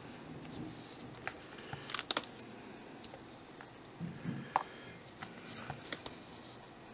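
Faint handling sounds of hands pinching off and rolling small bits of polymer clay on a desktop: scattered small taps and light rubbing, with a few clicks about two seconds in and again past the middle.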